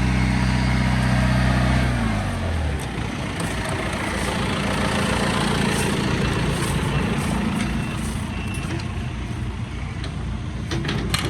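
An engine running steadily, then dropping in pitch and winding down about two seconds in. A rough, steady machinery rumble carries on after it, with a few sharp knocks near the end.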